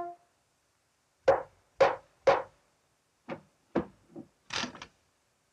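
Sharp wooden knocks: three evenly spaced strikes about half a second apart, then a quicker, quieter run of knocks.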